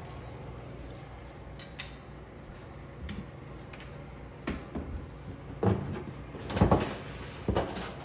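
Plastic knocks and clatter as a refrigerator's interior back panel, which covers the evaporator coils, is worked loose and pulled out. The knocks are scattered and irregular, with the loudest clatter about six and a half seconds in.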